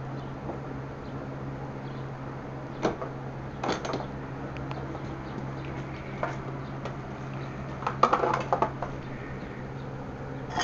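Hand tools and steel motorcycle steering-head parts clinking and knocking a few times as they are handled, with a louder cluster of clinks about eight seconds in, over a steady low hum.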